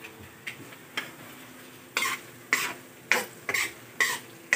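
A metal ladle scraping and knocking against a metal wok as French fries are stirred in hot oil, about seven short strokes at an uneven pace, over a steady sizzle of frying.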